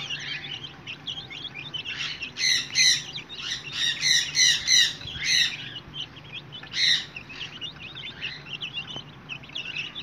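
A flock of young chicken chicks peeping and cheeping while they eat from a feed dish. Many short high chirps overlap, with a run of louder, clearer peeps about halfway through and one more a little later.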